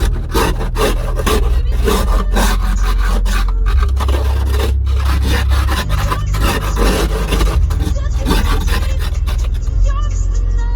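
Snow and ice being scraped off a car's glass in quick, irregular, repeated strokes, with a steady low hum underneath.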